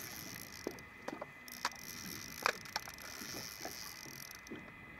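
Steady hiss of wind and water around an open boat, with a handful of light, irregular clicks and knocks from the spinning reel and rod while a hooked cobia is being played.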